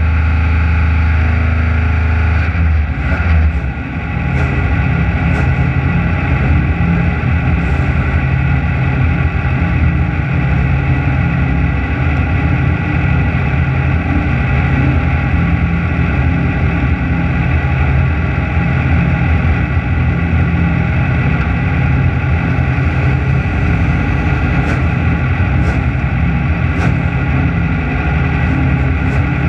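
Off-road race car's engine idling steadily, heard from on board while the car waits at the start, with a brief dip in level about four seconds in.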